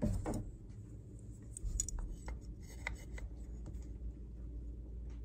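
Light handling sounds: a brief rustle of a paper shop towel at the start, then scattered small clicks and taps as a metal pocket rule is set against a pine board.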